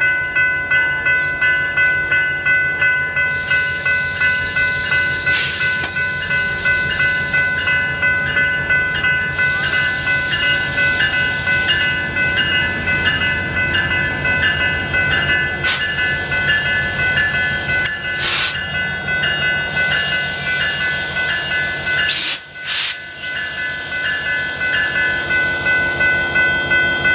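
Railroad grade-crossing bell ringing in a steady rhythm of about one and a half strokes a second as a train pulls through. It is joined by several stretches of hissing, and there is a brief drop in level about three-quarters of the way through.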